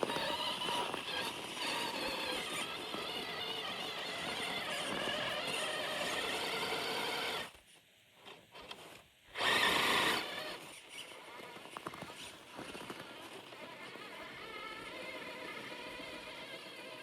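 Electric motor of a Hobbywing-powered RC car whining and changing pitch as it drives through snow, over a hiss of wheel and wind noise. About seven and a half seconds in, the sound nearly cuts out for a couple of seconds. A short loud burst follows, and then it runs on more quietly.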